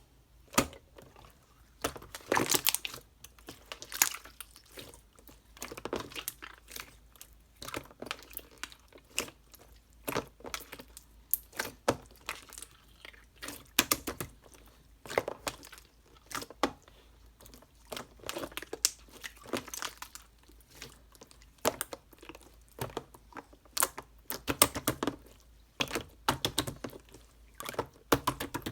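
Irregular close-up handling noises: sharp taps and knocks mixed with crinkling.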